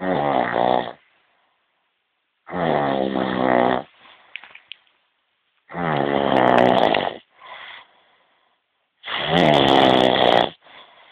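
A sleeping person snoring: four loud snores at a steady pace of about one every three seconds, each followed by a softer breath.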